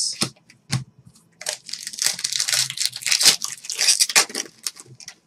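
A trading-card pack's foil wrapper being torn open and crinkled, with a few handling clicks before it.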